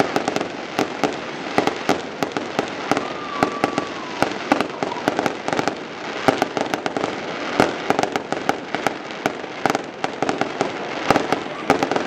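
Fireworks display: a dense, irregular run of sharp bangs and crackles from aerial shells and crackling stars bursting in quick succession.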